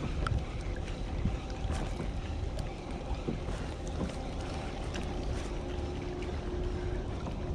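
Wind on the microphone and small waves slapping the hull of a fishing kayak, over the faint whir and ticking of a spinning reel being cranked to retrieve a spinner.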